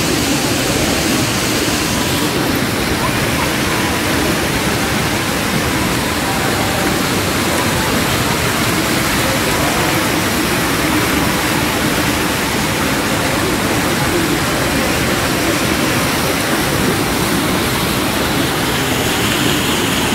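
Steady rushing and splashing of an indoor floor fountain's many water jets, with a murmur of voices.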